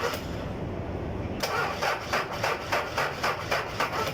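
Diesel forklift engine cranking on its starter without firing, a rhythmic chug about three times a second. The cranking pauses for about a second, then starts again. It is a hard-starting diesel that does not catch.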